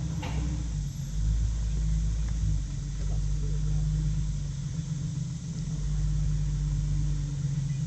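Jeep engine running at low revs while crawling over rocks, its low drone swelling and easing slightly. A brief knock sounds about a third of a second in.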